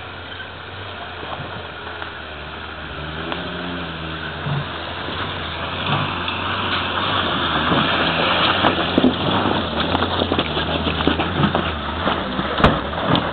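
Small soft-top 4x4's engine working under load as it climbs a steep, rutted dirt track, its revs rising and falling and the sound growing louder as it comes closer. In the second half, stones and dirt crack and knock under the tyres.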